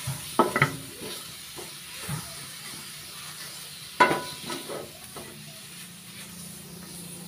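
Fish pieces sizzling as they fry in oil in a wok, stirred with a spatula that scrapes the pan. There are a few sharp knocks of the spatula against the pan near the start and again about four seconds in.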